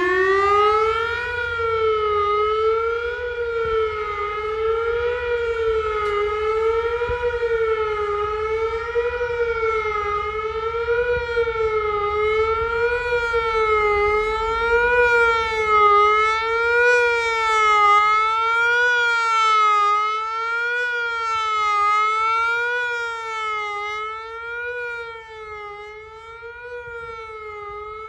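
Whelen WPS-3000 electronic outdoor warning siren sounding the Attack signal: a loud tone that finishes its opening rise in pitch, then warbles up and down about once a second.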